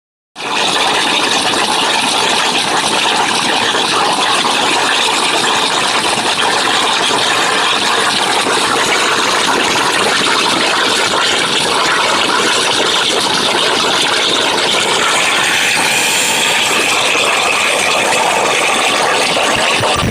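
CNC oxy-fuel gas cutting machine at work, with a loud, steady hiss that starts about half a second in and holds unchanged.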